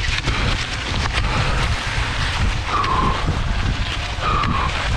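Wind buffeting an action camera's microphone as a cross-country skier skates at race pace, with a rough low rumble, irregular scrapes and clicks from the skate skis and poles on the snow, and a couple of short squeaky tones near the middle and the end.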